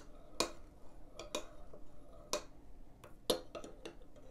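Metal spoon stirring hot milk curdling with vinegar in a ceramic mug, clinking against the side of the mug about once a second, with fainter ticks in between.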